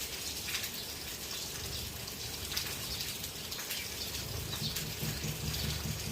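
House sparrows chirping in short repeated calls over a steady hiss. From about four seconds in, a low rapid pulsing hum joins them.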